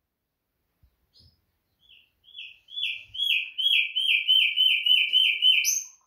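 Common nightingale singing: a soft note, then a run of about a dozen quickly repeated whistled notes that swell in loudness, ending on a sharp higher note.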